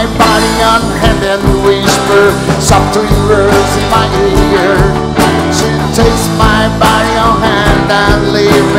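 Live rock band playing an instrumental passage: acoustic and electric guitars and electric bass over a drum kit keeping a steady beat.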